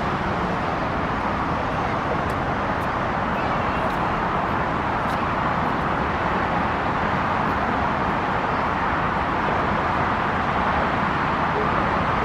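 Steady outdoor traffic rumble as a San Diego Trolley Siemens S70 light rail car approaches slowly, growing slightly louder toward the end.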